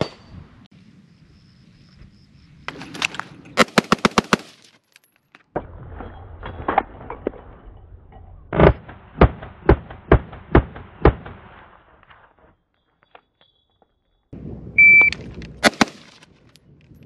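AR-15 rifle firing semi-automatic strings: a very fast run of about seven shots, then a slower string of shots about half a second apart. Near the end a shot timer beeps once and two quick shots follow.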